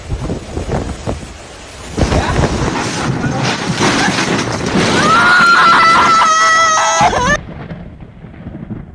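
Typhoon-force wind gusting and buffeting the microphone, with driving rain. About five seconds in, a loud held pitched tone rises over the storm for about two seconds, then cuts off suddenly.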